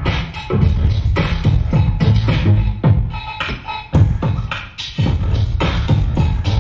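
Electronic hip-hop dance track with heavy bass and a steady, hard-hitting beat, which thins briefly near the middle before coming back in full.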